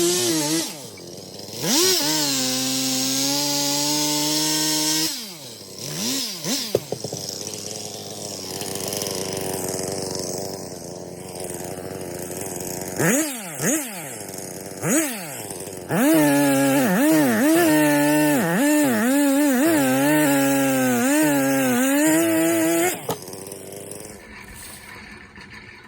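Two-stroke chainsaw, revved hard, then dropped to idle with a few quick throttle blips, then run at full throttle again with its pitch wavering as it cuts wood. Near the end it drops off.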